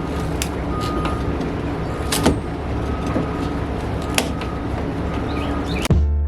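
Steady mechanical hum, like an engine running, with a few sharp knocks scattered through it. Just before the end, a different sound with strong low tones cuts in.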